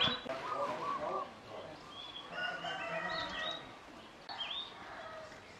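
Birds chirping and calling, a busy mix of short whistled notes and quick rising and falling sweeps.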